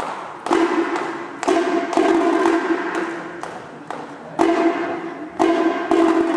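Marching band playing, with sharp percussion strikes about every half second and loud held brass chords between them.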